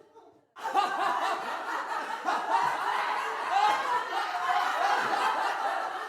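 A group of people laughing, many voices overlapping, starting suddenly about half a second in after a moment of silence.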